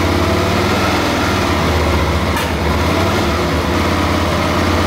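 Suzuki DL650 V-Strom's fuel-injected 645 cc V-twin running steadily with the throttle held slightly open. Its throttle bodies have been set out of sync to richen a lean rear cylinder, and it runs evenly, the revs holding.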